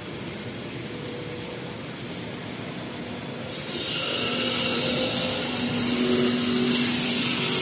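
Steady industrial machinery noise in a factory hall: a constant hum under a noisy rush. About halfway through, a louder hiss joins in.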